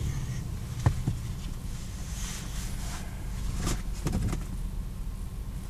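Steady low hum inside a car cabin, with soft rustles and a few knocks as a small child pulls on her boots, the sharpest knock about a second in.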